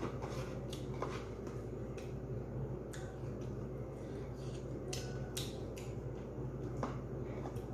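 Eating sounds: a handful of short smacks and clicks from chewing and from fingers picking food off a plate, over a steady low hum.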